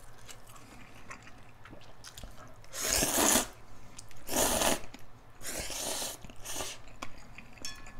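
A person slurping instant ramen noodles, close to the microphone: four noisy slurps starting about three seconds in, the last one short.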